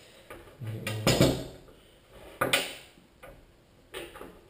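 A few separate knocks and clatters of a Silky Zubat pruning saw and its scabbard being handled and set down on a wooden table. The loudest knock comes about a second in.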